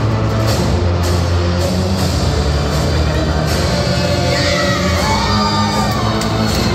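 Loud rock music with a heavy, steady bass line, playing continuously.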